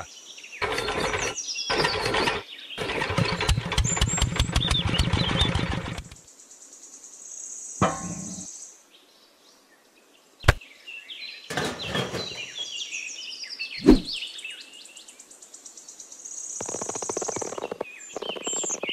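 Small plastic model parts being handled and fitted together, with clicks and knocks and a run of rapid clicking lasting about three seconds. Birds chirp in the background.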